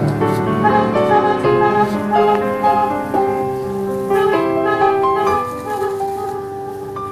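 Instrumental background music: a melody of held notes over steady chords.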